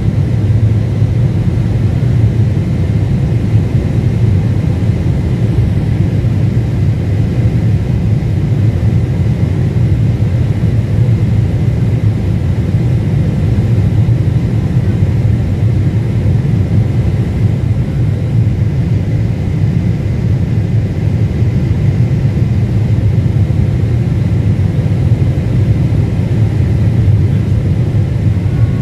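Steady low rumble of a Boeing 747-8 airliner on final approach, heard inside the passenger cabin, with a faint steady whine above it.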